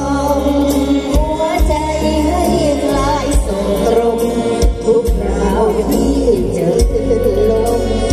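Live mor lam band music played loud through a stage sound system: singing over heavy bass and drums.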